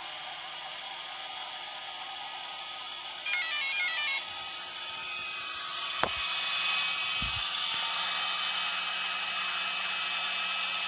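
Twin Integy motor cooling fans on a Traxxas XO-1 RC car running with a steady whir and hiss that swells from about five seconds in and is very loud. A short run of stepped electronic beep tones sounds a little over three seconds in, and a sharp click follows about six seconds in.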